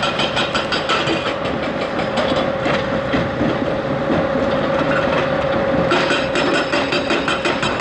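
Crawler excavator at work: its diesel engine runs steadily under a constant whine, with a fast metallic clatter that eases in the middle and picks up again about six seconds in.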